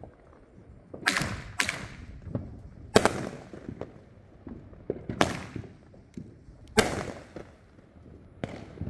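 Zombie Fireworks' "Webs" firing aerial bursts: six sharp bangs, irregularly spaced half a second to two seconds apart, each trailing off briefly, with fainter crackles between them.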